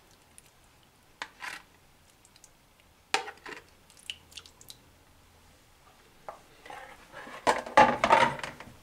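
Metal spoon clinking and scraping against a plastic bowl and a glass baking dish as sauce is spooned out: a few light scattered clicks, then a louder burst of clatter near the end.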